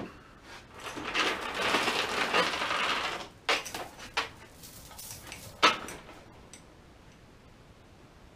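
Metal rattling and clattering for about two seconds, then three sharp metallic clanks.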